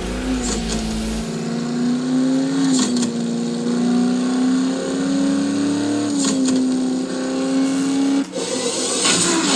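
A car engine sound holding a steady pitch with a few brief dips in revs. It breaks off about eight seconds in into a noisy rush.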